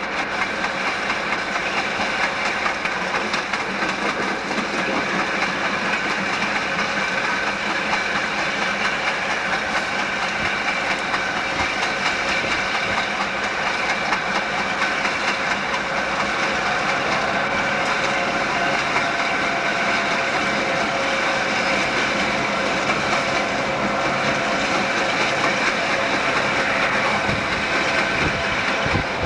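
Southern Pacific EMD GP9 diesel locomotives running steadily at moderate speed, their engines' hum mixed with wheel and rail noise, heard from a car pacing alongside. Through it comes the rhythmic thump-thump-thump of a flat spot on one locomotive wheel, the fault that holds the train to about 25 mph.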